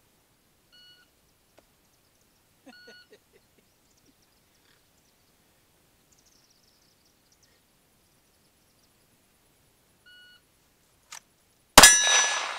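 An electronic shot timer beeps, twice in the first few seconds and again just after 10 s as the start signal; about a second and a half after that start beep a Glock 19X 9mm pistol drawn from a concealment holster fires one loud shot, followed by a ringing tail from a steel target.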